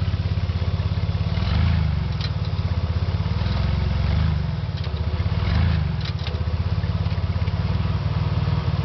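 1994 Mercury Sable engine idling with a fast, even low throb that swells a few times, on a bad motor mount that lets the engine shake. A few faint clicks ride over it.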